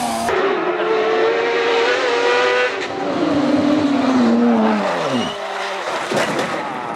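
Race car engines at high revs: a steady, high engine note, then from about three seconds in a note that falls steeply in pitch as a car passes by and slows.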